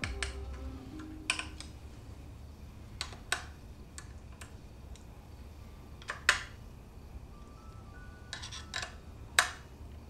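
Scattered sharp clicks and taps of metal tools and bike parts being handled during assembly, about a dozen, the loudest two in the second half, over quiet background music.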